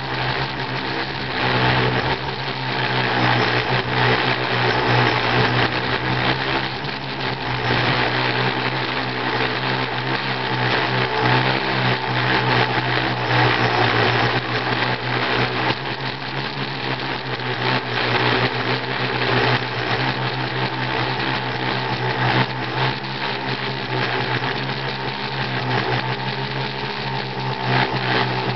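Small remote-controlled aircraft's electric motors and propellers running steadily in flight, heard from on board: a constant hum with an even hiss, swelling slightly now and then.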